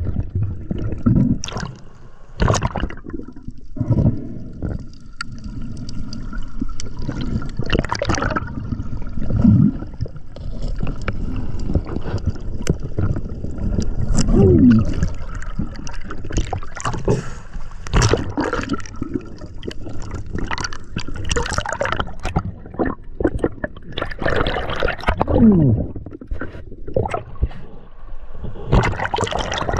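Underwater water noise around a diver's camera: gurgling and sloshing with scattered knocks and clicks, and a few brief falling tones. Near the end the camera breaks the surface into lapping, splashing water.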